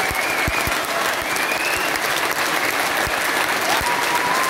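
A large theatre audience applauding: dense, steady clapping from many hands.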